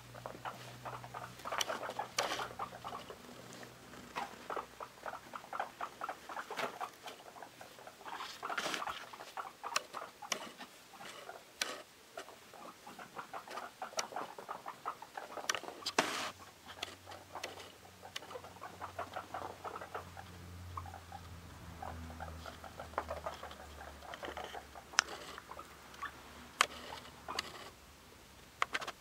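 Guinea pigs scampering and popcorning, their small feet pattering and tapping rapidly on the enclosure floor in quick runs, with a few sharper knocks now and then.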